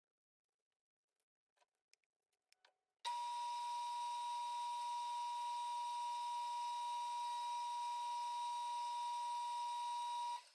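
Metal lathe running while a center drill in the tailstock chuck bores into the end of a 12L14 steel bar: a steady high whine over a faint low hum. It starts suddenly about three seconds in and cuts off sharply near the end.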